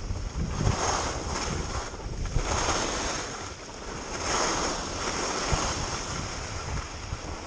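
Skis turning on groomed snow: three swelling hisses as the edges scrape through each turn, over a steady low rumble of wind on the microphone.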